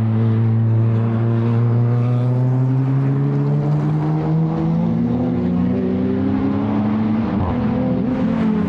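Time-attack race car engine pulling under acceleration, its pitch rising slowly and steadily for about seven seconds, then dropping at a gear change near the end.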